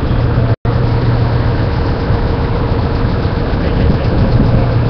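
Offroad race car engines idling close by: a loud, steady low drone. The sound cuts out for an instant about half a second in.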